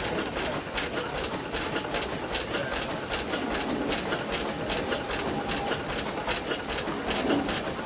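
Steady hiss of steam from a line of standing steam rollers in steam, with many light irregular clicks and ticks over it.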